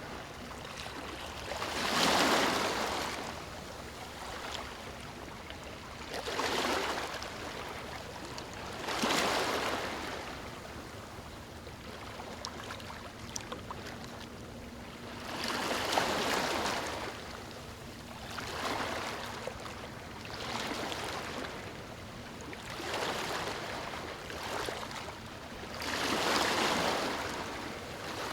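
Sea waves breaking and washing up a sandy beach: about eight surges of surf, some stronger than others, with a steady hiss of water between them.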